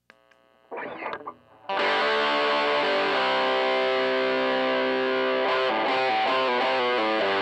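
Electric guitar played through a Joyo crunch distortion pedal into a 5E3 tweed Deluxe copy amp. A brief pick attack comes about a second in, then a loud distorted chord is struck and left ringing, with a few changing notes near the end.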